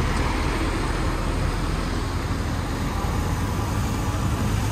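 A Mercedes-Benz semi-truck pulling a shipping-container trailer passing close by, its diesel engine and tyres making a steady low rumble over general street-traffic noise.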